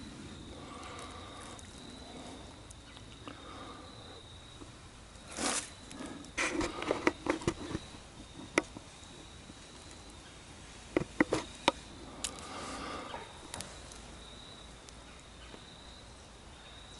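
A dry-grass tinder bundle rustling and crackling in short bursts as it is handled and worked toward flame, loudest around the middle. Under it runs a steady high-pitched insect trill.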